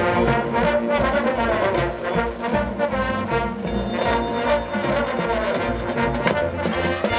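High school marching band playing brass-led music with sustained chords over a steady low beat.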